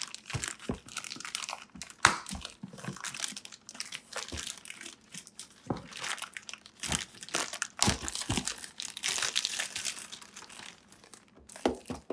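Plastic poly mailer bag crinkling and tearing as it is ripped open by hand: an irregular run of rustles and crackles, with a sharp loud rip about two seconds in.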